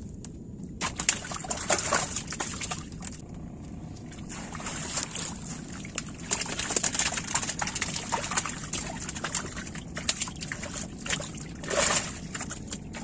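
Water splashing and dripping in uneven bursts as a wet fishing net is pulled out of the lake, with scattered clicks and knocks.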